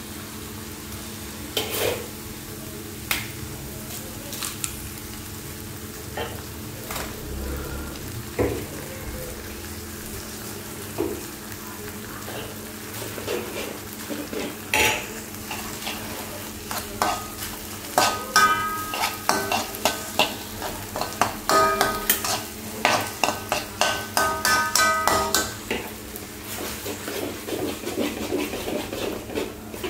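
Kuey teow and yellow mee stir-frying in two woks: a steady sizzle with a metal spatula stirring and scraping through the noodles. From a little past halfway the spatula strikes the wok in quick, repeated clanks that ring.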